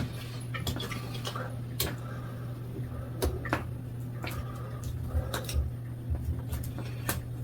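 Scattered light clicks and taps, irregular and a few per second, from handling bicycle parts and tools during assembly, over a steady low hum.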